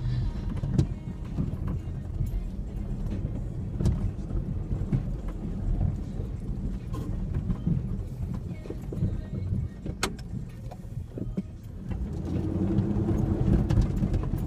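2003 Ford Ranger 4x4 driving over a rough off-road trail: a low engine and drivetrain rumble with scattered knocks and rattles as the truck bumps over the ground. It eases off briefly and picks up again near the end.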